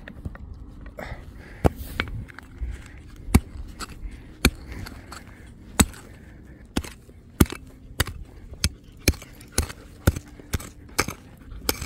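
A digging tool striking into hard ground again and again to dig out a metal detector target: about fifteen sharp strikes, spaced out at first, then coming roughly every half second.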